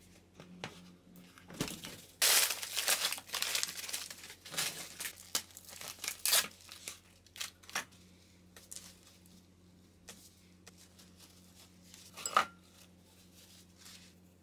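Plastic food packaging crinkling and rustling as bags are handled on a wooden cutting board, loudest in the first few seconds. A single sharp tap comes near the end.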